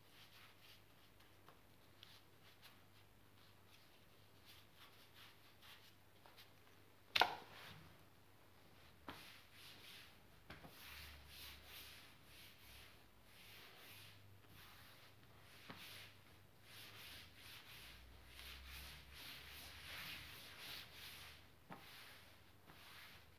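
Faint scratching of a glue brush at first, then hands sweeping and rubbing fabric flat over a glued board: a soft swishing that comes and goes. A single sharp knock about seven seconds in is the loudest sound.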